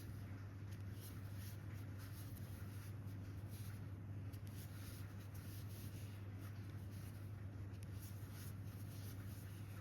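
Faint scratching and rubbing of a crochet hook and yarn as single crochet stitches are worked, in soft irregular strokes. A steady low hum runs underneath.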